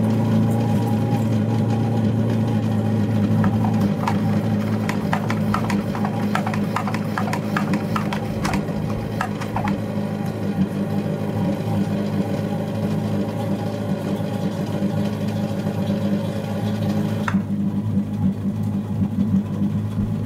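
A steady mechanical hum runs throughout. From about four to ten seconds in there is a quick run of clicks, about three a second, from a hand-pumped garden pressure sprayer being pumped up to push antifreeze through a jet ski's engine.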